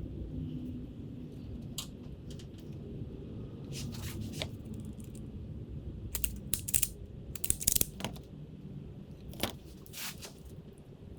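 Hand work on a car's wiring harness with small tools: scattered short clicks and crackles, the sharpest cluster a little past the middle, over a steady low hum.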